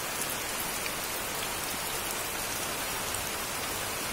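A tub heaped with small live crabs crawling over one another, making a steady crackling rustle of many tiny clicks, like light rain.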